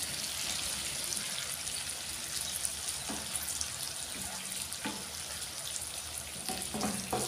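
Liver masala sizzling in hot oil in a kadai while a wooden spatula stirs and turns it, with a few short scrapes and knocks of the spatula against the pan.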